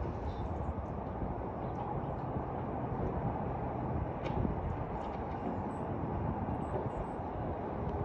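Steady low rumble of background noise, with a few faint, short, high bird chirps, most of them about six to seven seconds in.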